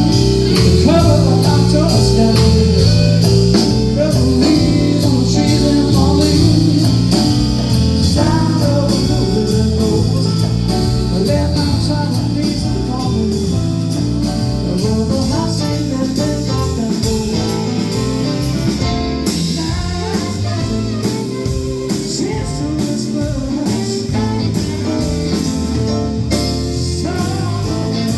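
Live band playing a blues number, with guitar, drums and singing.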